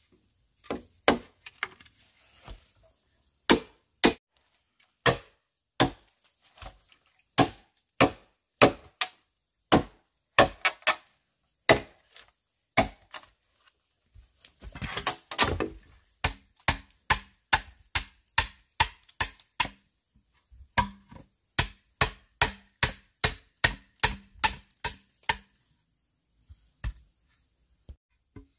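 Repeated chopping strokes of a blade against wood, sharp single knocks about one or two a second at first. From about halfway they settle into a faster, steady run of roughly two a second, then stop shortly before the end.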